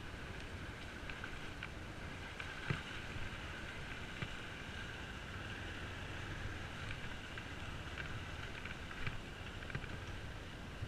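Bajaj Pulsar motorcycle running steadily at low speed over a muddy, rutted track, with scattered knocks and clicks from the bike jolting over the ruts. The loudest knock comes about three seconds in.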